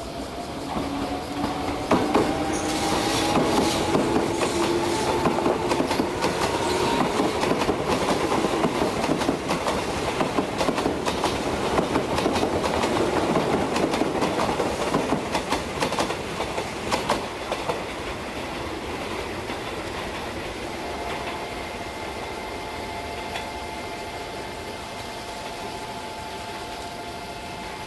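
Izu Kyuko 2100 series 'Resort 21' electric train running past close by: wheels clattering over the rail joints, with a whine that rises in pitch as it gathers speed. After about eighteen seconds it settles into a quieter, steady running noise with a few held tones near the end.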